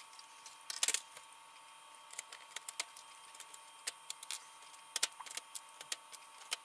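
Scattered light clicks and taps of socketed chips being pulled out of a Commodore 64 motherboard and handled, with a small cluster about a second in and another around five seconds.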